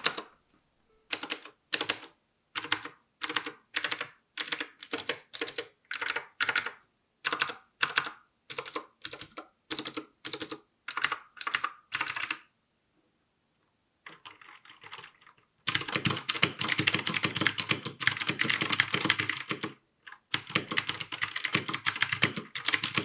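Royal Kludge RK61 mechanical keyboard with clicky Gateron blue switches. Keys are pressed one at a time, about two a second, then after a short pause it is typed on fast and continuously.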